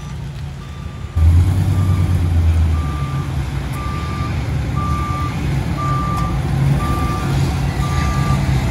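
Tow truck backing up, its reversing alarm beeping about once a second over the running truck engine. The engine gets louder about a second in.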